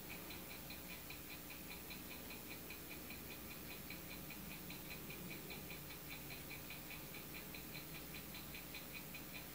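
Faint, rapid, evenly spaced ticking, several ticks a second, over quiet room tone.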